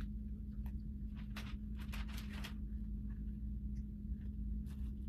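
Steady low hum of room tone, with scattered soft clicks and a short rustle about two seconds in and another near the end, from small objects being handled.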